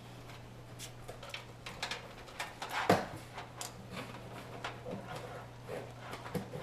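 Scattered clicks and knocks of a hard drive being handled and fitted into a drive bay of a computer case, with one louder knock about three seconds in, over a steady low hum.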